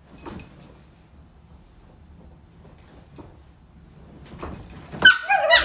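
Soft rustling of hands on couch fabric as a chihuahua is handled, then near the end a loud burst of high-pitched yapping and snarling from the chihuahua.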